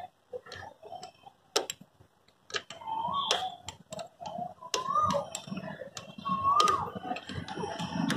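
Sharp metal clicks and taps of spring and gear-selector parts being handled and fitted into an old Royal Enfield Bullet's gearbox. From about three seconds in, a short rising-and-falling whistle recurs every couple of seconds over a low rumble.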